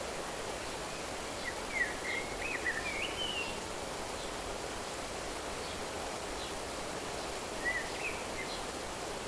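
A songbird sings two short warbling phrases, a longer one about a second and a half in and a brief one near the end, over a steady, even rushing background noise.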